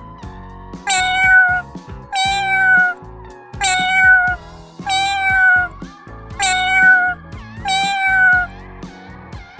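Domestic cat meowing six times, the same meow repeated about every second and a half, each one falling in pitch at its end. Background music with a steady beat runs underneath.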